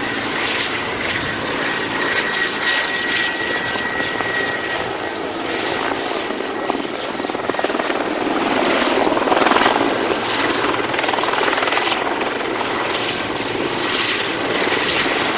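Mil Mi-35 Hind attack helicopter flying low: its rotor and turbine engines make a steady, dense noise with a thin high whine that comes and goes. The noise grows louder a little past halfway through, then eases.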